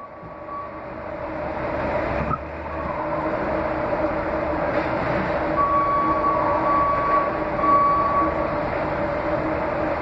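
Steady mechanical drone with a low hum and a fainter high tone that comes and goes, building over the first two or three seconds and then holding steady.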